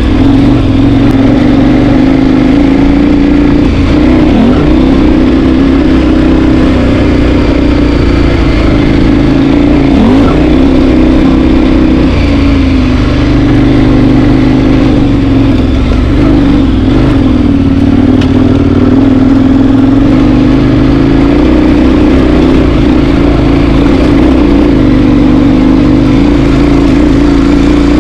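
Four-wheel-drive vehicle's engine running steadily while driving, its pitch wavering slightly with the revs.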